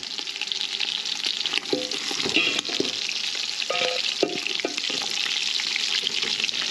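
Browned pork rib pieces sizzling in hot fat in an aluminium pot, with a metal spoon scraping and clicking against the pot as the ribs are lifted out.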